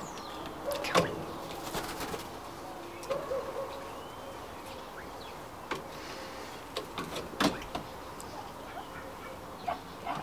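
A few scattered sharp taps and feather rustles from a golden pheasant perched on a person's arm, the loudest about a second in and again near seven and a half seconds, with short soft low bird calls and a faint chirp in the background.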